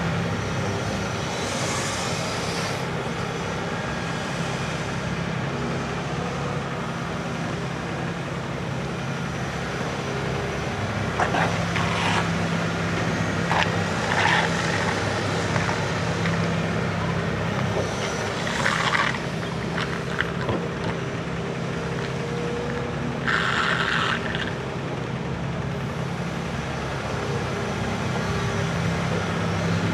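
Hitachi Zaxis 280 LCN hydraulic excavator's diesel engine running steadily under load while it works, with several short, louder noisy bursts in the middle.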